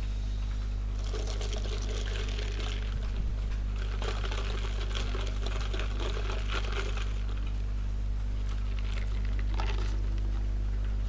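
A coloring pen scribbling back and forth on paper in two long stretches, with a shorter burst near the end, over a steady low hum.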